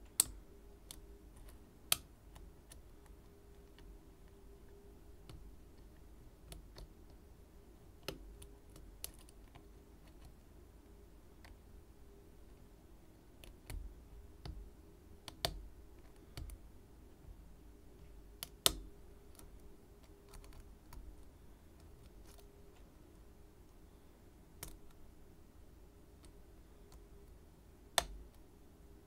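Picking a Schlage Everest C123 pin-tumbler lock cylinder: scattered sharp metallic clicks and ticks of the pick and tension wrench working the pins, irregularly spaced with a few louder clicks, over a faint steady hum.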